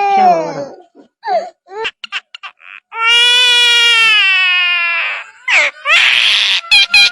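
A bird, most likely a parrot-type mimic, imitating a crying baby: long drawn-out wailing cries that sag slightly in pitch, broken up by short sharp chirps and clicks, with a brief hiss near the end.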